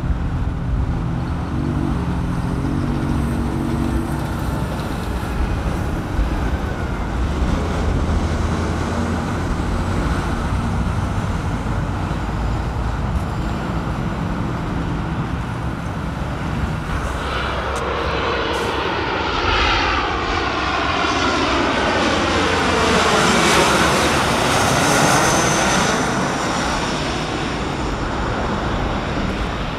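Steady traffic and airport rumble, then an American Eagle twin-jet with rear-mounted engines flies low overhead on approach over the second half. Its engine whine sweeps down in pitch as it passes, loudest a little past two-thirds of the way through.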